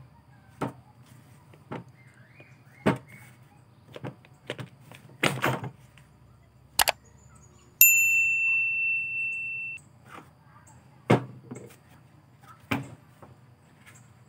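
Scattered knocks and clicks of plastic and metal parts being handled as a Makita HR2470 rotary hammer's armature and gear housing are fitted together. About eight seconds in, a subscribe-bell ding sound effect rings for about two seconds and is the loudest sound.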